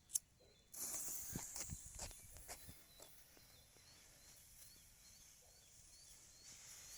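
Quiet outdoor ambience: a single soft click, then about two seconds of faint rustling with soft ticks, and later faint short high chirps repeating every half second or so.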